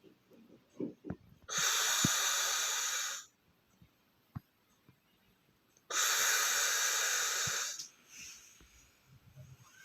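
A person snoring with long hissing breaths, twice, each lasting about a second and a half, with near-quiet pauses between them.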